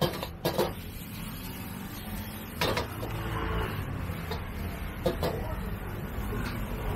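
Metal ladle clanking sharply against a wok a few times as stir-fried noodles are tossed, over the steady roar of a gas wok burner.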